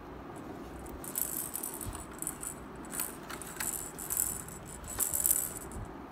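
Plastic rattling and clicking as a hand handles a plastic pound-and-ball ramp toy, in several short bursts over a few seconds.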